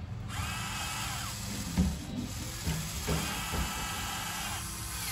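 Radio-controlled model excavator's motors whining in two stretches as the boom and bucket move, the first ending in a falling pitch. A few dull knocks come as the bucket works the wet mud.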